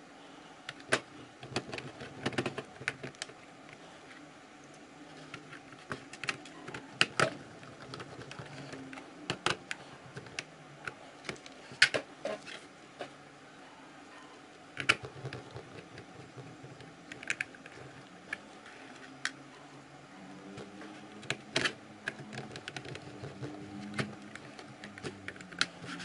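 Small cross-head screwdriver fastening screws into a laptop's plastic bottom cover: scattered, irregular small clicks and ticks of metal on plastic, some coming in quick clusters.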